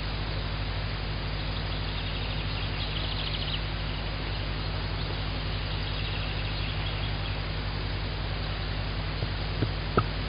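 Steady hiss and low hum from the tawny owl nest-box microphone. Faint, high, rapid bird chirping comes in twice, and two sharp knocks sound near the end.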